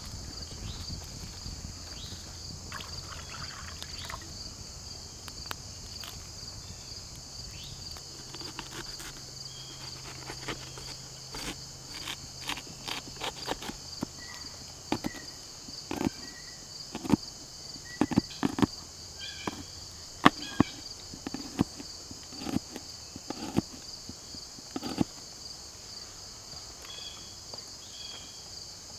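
Steady high-pitched chorus of crickets and other insects. Over it, a knife chopping garlic and onion against a plastic box lid gives irregular sharp taps from about ten seconds in until near the end.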